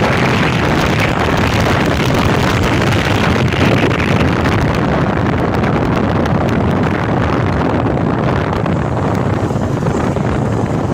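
Loud, steady wind rush buffeting a phone's microphone while travelling by road, mixed with the low rumble of the moving vehicle.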